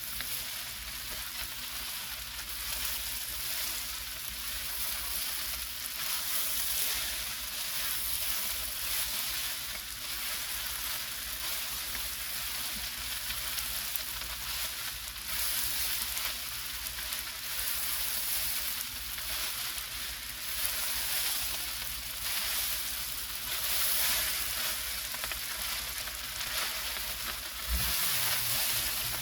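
Ham fried rice sizzling in a large pot while being stirred, a steady frying hiss with scraping and crackle as the rice is turned.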